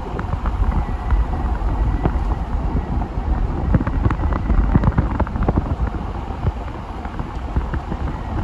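Wind buffeting the microphone: a gusty low rumble with scattered irregular clicks.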